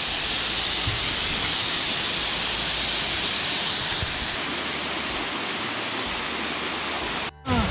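Steady rushing of a small waterfall cascading down a rock face, its hiss becoming a little duller about four seconds in and breaking off briefly near the end.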